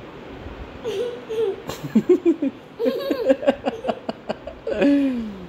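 Young children giggling and laughing, starting about a second in, in short bursts of rapid laugh pulses.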